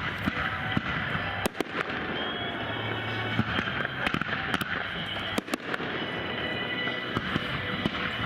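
Fireworks bursting, with a sharp bang about every second over a steady crackling hiss.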